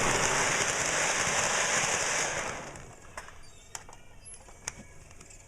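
Lionel O gauge electric toy train running on the track with a loud hissing crackle that dies away about two and a half seconds in, leaving a few faint clicks: the train has stalled and is not yet running right.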